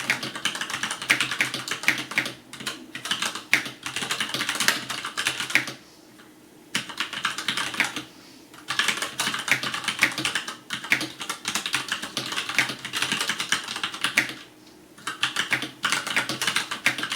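Fast typing on a FILCO Majestouch Ninja tenkeyless mechanical keyboard with Cherry MX Brown switches: a dense patter of key clacks, stopping briefly three times.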